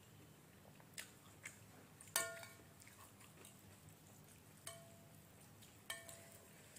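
Metal spoon and fork clinking against a glass bowl of noodle soup: three short ringing clinks, the loudest about two seconds in, with a couple of softer taps before it and faint chewing.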